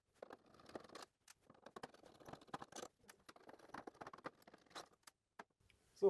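Faint, quick, irregular small clicks and scrapes of a screwdriver turning out the screws that hold a steam humidifier's water level control, in sped-up footage.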